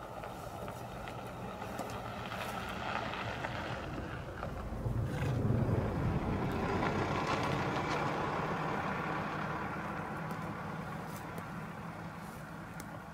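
A motor vehicle's engine running steadily with a low hum, swelling louder for a few seconds in the middle and easing off again, with faint clicks of zebras cropping dry grass close by.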